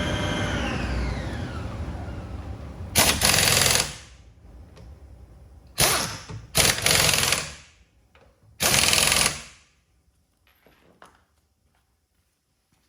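Steam cleaner motor winding down, falling in pitch, then four short, loud blasts of spray jetting from the lance, the last about nine seconds in.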